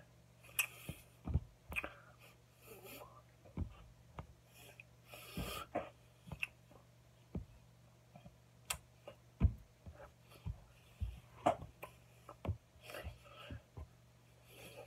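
Hands working in sign language: scattered sharp taps, slaps and brushing of hands against each other and the body, with breathy puffs and mouth sounds, over a steady low hum.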